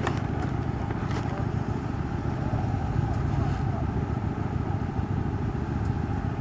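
Steady low rumble of motor vehicle engines running, with a couple of faint clicks near the start.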